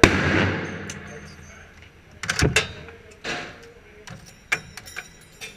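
An M60 belt-fed machine gun fires a single loud shot right at the start, which rings out and dies away over about a second in the indoor range. Several sharp knocks and clacks follow, the loudest about two and a half seconds in, with lighter clicks near the end.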